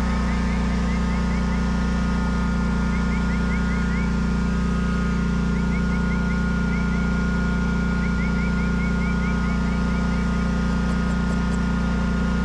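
Small lawn-mower engine idling steadily with an even hum, with faint short chirps in runs above it.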